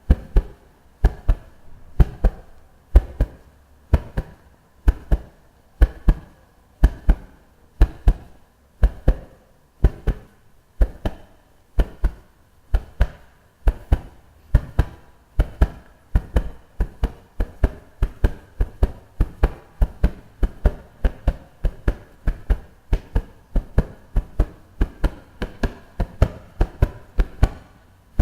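Foley heartbeat effect: paired low thumps, a lub-dub about once a second, quickening in the second half.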